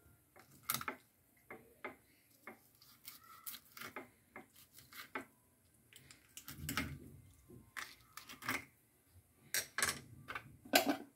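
Kitchen knife scoring the skin of whole pargo (sea bream) on a ceramic plate: scattered short scrapes and clicks of the blade against the fish and the plate. A louder, longer handling sound comes about six and a half seconds in.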